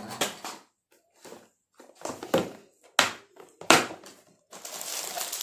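Hands rummaging in clear plastic storage boxes: three sharp plastic clacks a little over half a second apart from about two seconds in, then a rustle of plastic wrapping near the end.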